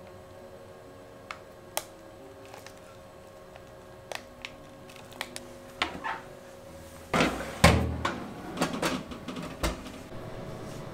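A few light clicks and taps, then about seven seconds in a run of loud clattering from a metal baking tray going into a countertop convection oven and the oven door being shut.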